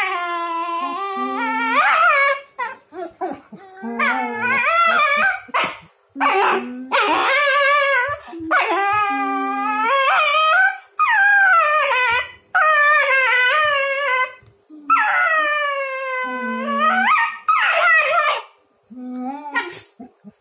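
German Shepherd dogs play-fighting, one or both giving a string of long whining howls, each a second or two long, bending up and down in pitch, with short breaks between them.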